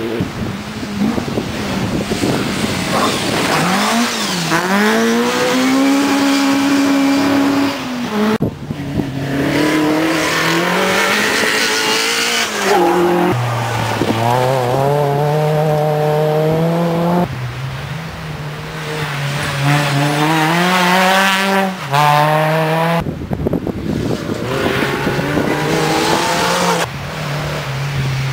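Rally cars on a gravel forest stage, engines revving hard as they pass. The pitch climbs and drops again and again with gear changes and lifts, in several short passes that cut abruptly from one to the next.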